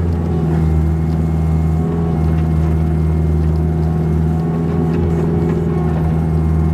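Kubota KX161-3 five-ton excavator's diesel engine running steadily at working revs.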